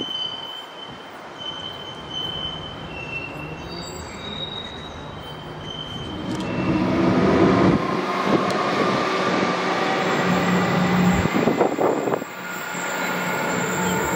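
A train on the rails, with high, thin wheel squeal on and off. About six seconds in, a locomotive draws close and the sound grows louder, with a steady engine drone.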